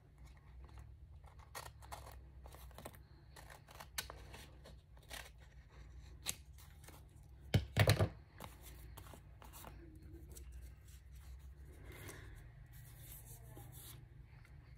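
Scissors snipping through a paper envelope in a series of short, irregular cuts, with a couple of louder knocks just before eight seconds in; after that only faint paper handling.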